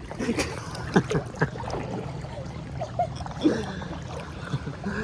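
Seawater sloshing and splashing over a steady low rumble, with a few brief distant voices calling.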